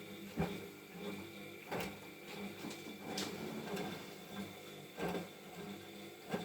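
Siemens front-loading washing machine turning its drum on a silk wash, the motor humming steadily as the clothes tumble. A soft knock comes every second or two. This is the early wash stage, before the heater comes on.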